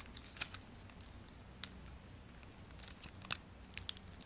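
Faint, scattered clicks of the hard plastic panels and ratchet joints of a Transformers Masterpiece MP-20 Wheeljack figure being pulled apart by hand during its transformation, with light handling in between.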